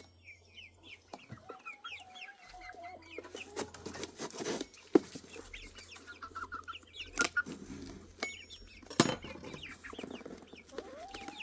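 Chickens clucking and calling, with many short high chirps and one drawn-out call a little over a second in. Two sharp clicks stand out, about five and nine seconds in.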